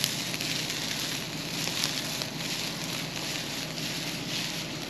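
A handful of windrowed hay twisted and wrung between two hands, the dry stems rustling and crackling continuously. This is a twist test of the hay's moisture before baling, and the farmer judges it still too tough to bale.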